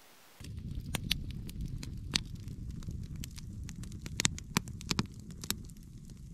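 Campfire crackling in a stone fire ring: irregular sharp pops and snaps over a low steady rumble, starting about half a second in.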